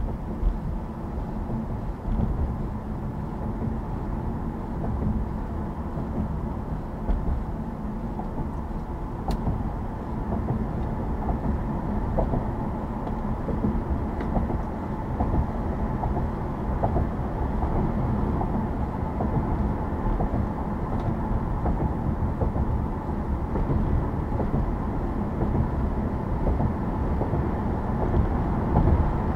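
Car driving on a road: a steady low rumble of tyres and engine, growing slightly louder toward the end.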